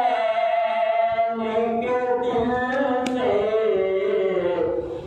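A man's solo voice chanting a slow mourning lament (noha) into a microphone, long held notes sliding gently up and down in pitch, with a brief break for breath near the end.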